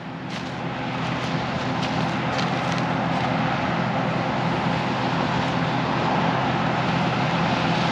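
Combine harvester running steadily while cutting soybeans: an even mechanical drone of engine and threshing that builds slightly in the first second and then holds.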